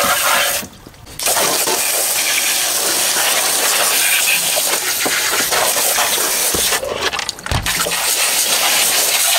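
Hose water spraying and splashing onto an RC truck's chassis, tires and wheel rims, a steady hiss that drops out briefly about a second in and again around seven seconds.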